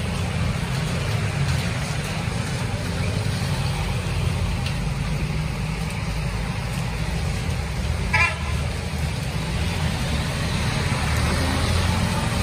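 Traffic on a rain-soaked, flooded street: a steady low rumble of engines under a hiss of rain and wet road. A vehicle horn gives one short toot about eight seconds in.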